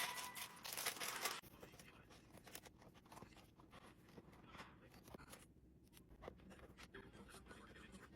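Plastic LEGO parts bag crinkling and tearing open for about the first second and a half, then faint scattered clicks.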